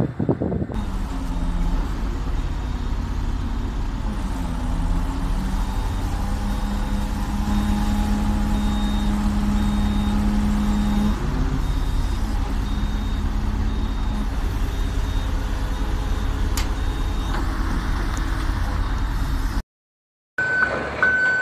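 Diesel engine of a Sany STC750 truck crane running steadily, its pitch shifting a few times as it is throttled. Near the end, after a short break, a truck's reversing beeps begin.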